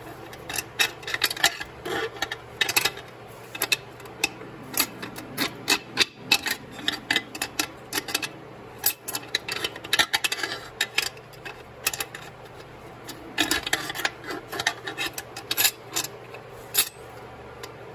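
Irregular light metallic clicks, taps and scrapes as parts are worked and fitted by hand inside an aluminum Powerglide transmission case during reassembly.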